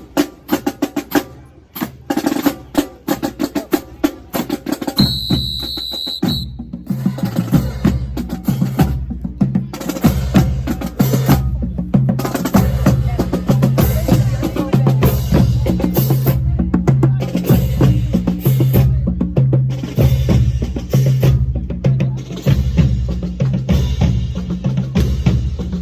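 Marching band drumline: scattered snare strikes, then a whistle blast about five seconds in, after which the full drumline plays a dense, driving cadence with bass drums pounding the low beats.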